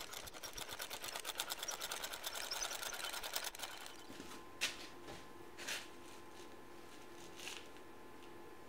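Moulding sand being sifted from a bowl-shaped sieve into a wooden casting flask: a fast, even rattling that stops about three and a half seconds in, followed by a few soft scrapes of sand being handled.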